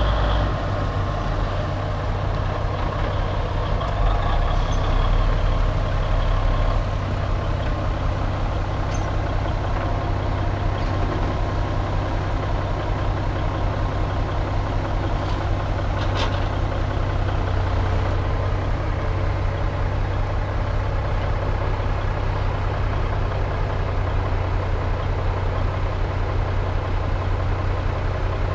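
Heavy diesel engines running steadily: a Kenworth log truck and a log loader working close by, giving a constant low hum. There is a single sharp knock about halfway through.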